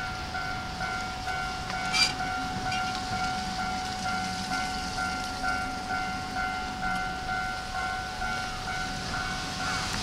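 Japanese level crossing warning bell ringing steadily, a repeated electronic ding at about two a second, with one sharp knock about two seconds in. A low diesel locomotive rumble runs underneath.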